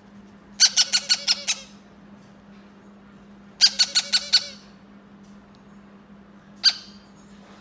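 Yellow-crowned amazon parrot chick squawking to beg for food, in two bursts of about five or six quick calls and then a single call near the end.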